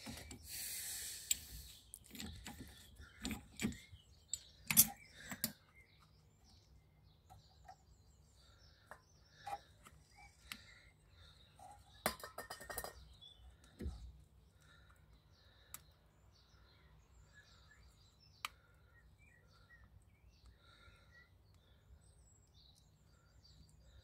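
Metal hand tools clinking and knocking against a rusty rear brake caliper, with a short aerosol spray hiss about twelve seconds in. Birds chirp faintly in the background.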